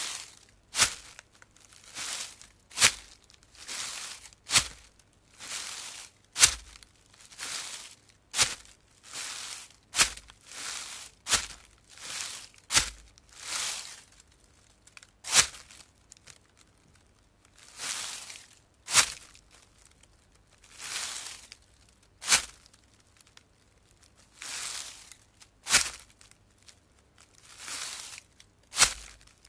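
Footsteps of shod feet walking at an unhurried pace over a forest floor of dry leaves and soil. Each step is a sharp crunch followed by a brief rustle of leaf litter. The walking pauses briefly twice.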